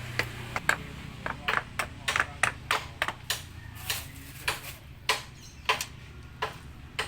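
Irregular series of short, sharp taps, about two or three a second, over a low steady hum.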